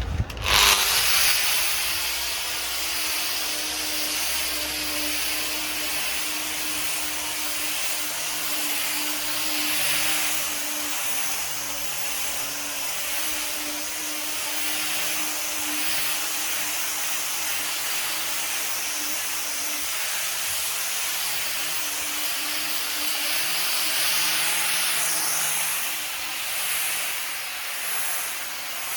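Electric orbital sander starting up about half a second in, then running steadily on a wooden table top: a steady motor hum under the hiss of sandpaper on wood.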